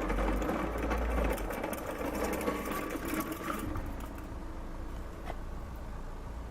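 Rapid mechanical clatter from a vehicle, the odd noise under investigation, over a steady low hum; the clatter dies away about two-thirds of the way through, leaving the hum.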